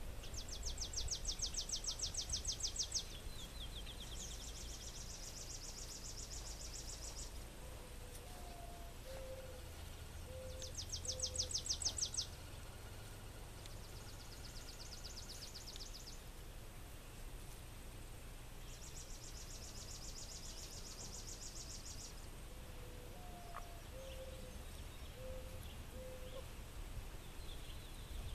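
Outdoor ambience: high, fast-pulsing trills come in bouts of two to three seconds every few seconds, over a steady low rumble. A faint, low five-note call sounds twice, once in the first half and once near the end.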